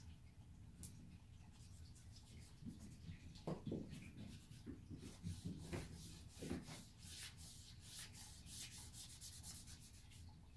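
Wet paintbrush scrubbing on the paper page of a paint-with-water book: faint, quick repeated brush strokes that grow busier after the first few seconds, with a few soft low bumps around the middle.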